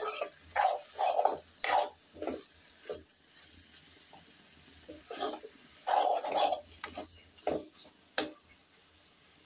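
A metal spoon scraping and turning shredded cabbage and potato in a metal wok during stir-frying, in short scraping strokes. There is one cluster in the first two and a half seconds, then another from about five to eight seconds in.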